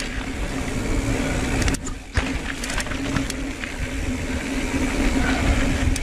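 Ibis Ripley mountain bike ridden fast on a trail, heard from a helmet camera: wind rushing over the microphone and tyres rumbling and rattling over the ground, with scattered sharp knocks. The noise dips briefly about two seconds in.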